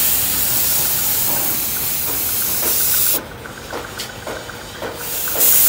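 Compressed-air paint spray gun with a gravity-feed cup hissing steadily as it sprays paint. The hiss cuts off about three seconds in, leaving a quieter stretch, and comes back near the end.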